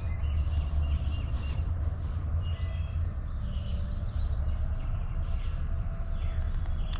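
Outdoor field ambience: a steady low rumble with a few faint, short bird chirps over it.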